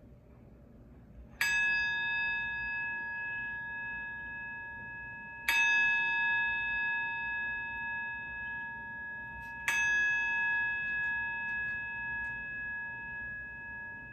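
A singing bowl struck three times with a wooden striker, about four seconds apart; each strike rings on in a clear, bright bell-like tone that wavers as it slowly fades.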